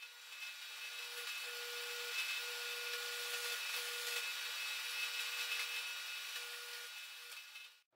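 Drill press bit cutting into a metal spacer: a steady scraping hiss, with a faint tone that comes and goes as the bit bites.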